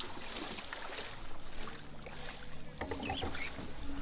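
Water lapping around a plastic pedal boat in shallow water, with a low uneven rumble and a few light knocks.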